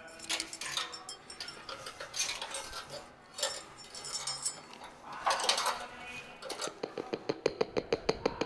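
Small metal light rings clinking against each other and against a metal ladder as they are handled and hung on lengths of MIG wire, with bits of rustling. Near the end comes a fast, even run of ticks, about seven a second.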